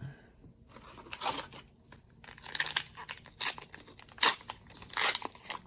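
A trading card booster pack wrapper being torn open and crinkled: a series of short, sharp rips and rustles.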